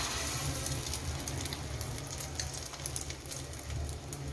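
Egg-dipped beef and potato kabab sizzling in hot ghee in a frying pan, the hiss starting suddenly as it is laid in and going on steadily with scattered crackles.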